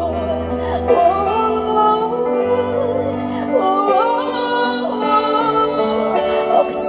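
Pop ballad with a female singer's wordless vocal runs, her pitch gliding and wavering over held bass and chords from the backing music.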